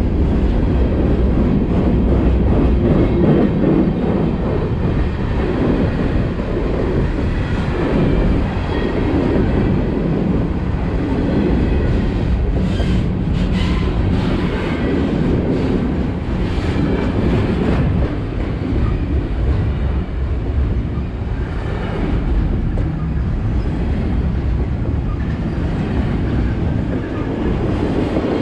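Freight cars of a mixed freight train rolling past: a loud, steady rumble and clatter of steel wheels on the rails, with a run of sharp clicks and brief squeaks about halfway through.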